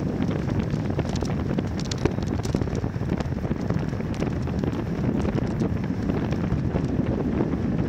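Wind buffeting the microphone of a camera riding along on a moving bicycle. It makes a steady low rushing noise with scattered faint ticks and rattles.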